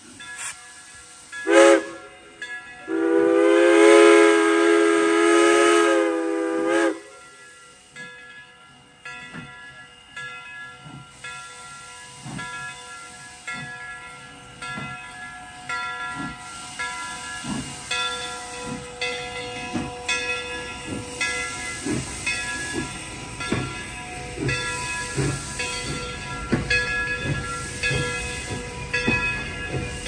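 CNJ 113, a 1923 ALCO 0-6-0 switcher steam locomotive, sounds its steam whistle over hissing steam: a short blast about a second and a half in, then a long blast of about four seconds. The train then gets under way through the crossing with a rhythmic beat that quickens, and a rumble that grows as the coaches roll past.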